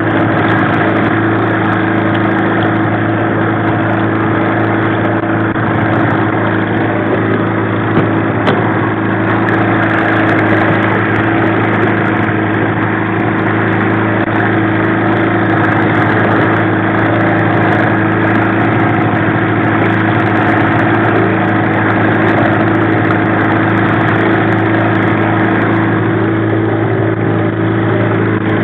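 1995 Mariner 15 hp two-stroke outboard running steadily at slow trolling speed, a constant even drone.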